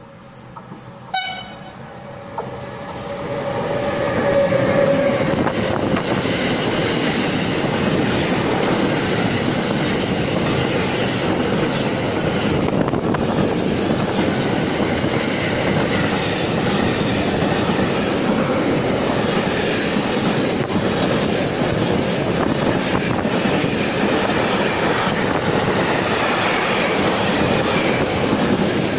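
Intermodal container freight train hauled by two electric locomotives running past at speed, a steady loud rush and rumble of wheels on rails. It builds over the first few seconds, with a steady high tone swelling and then ending as the locomotives come by.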